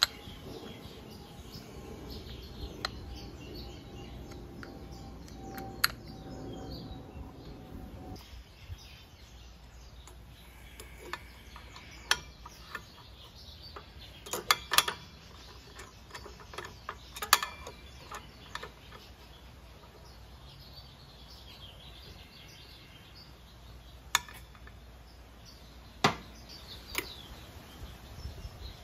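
Scattered sharp metal clicks and clinks, about a dozen spread irregularly, from hand tools and scooter CVT parts being handled: the variator face, a variator/clutch holder tool and a breaker bar with a 19mm socket fitted to the clutch nut. Birds chirp faintly in the background.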